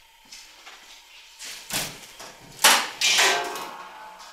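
A car's hood being unlatched and lifted open: a few sharp clunks from the latch, the loudest about two and a half seconds in, then a longer metallic sound that fades as the hood swings up.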